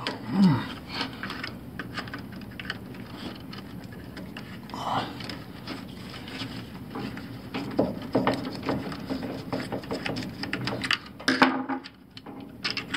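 A Phillips screwdriver backing a screw out of a washing machine's drain pump mount: a run of small irregular clicks and scrapes of metal on plastic, thickest in the later seconds.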